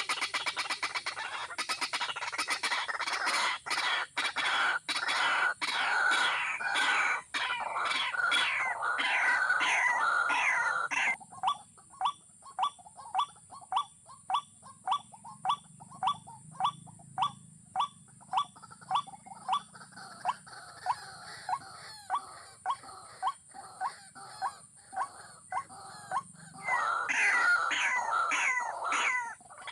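Waterhen calls: about ten seconds of dense, overlapping chattering, then a steady series of short falling notes about two a second, and dense chattering again near the end.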